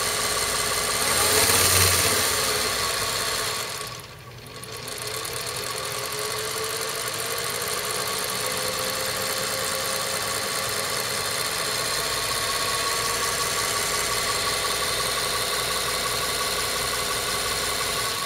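Vintage Singer sewing machine with a direct-drive potted motor running fast with a steady hum. About four seconds in it slows briefly, then picks up speed again with a slowly rising whine and runs on steadily.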